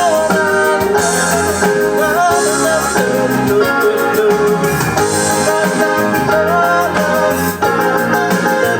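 Pop-rock MIDI backing track playing from a Roland E-500 keyboard's sequencer, with drums, bass and a wavering melodic lead line, and piano played along with it.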